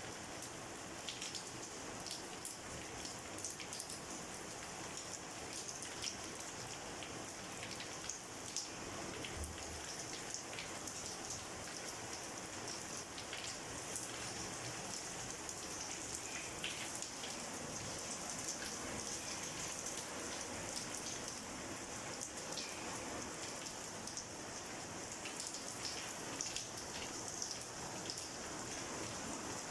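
Steady rain falling, with individual drops heard as many small sharp ticks.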